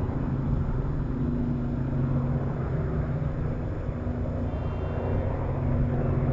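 A steady low mechanical rumble with a constant deep hum running under it.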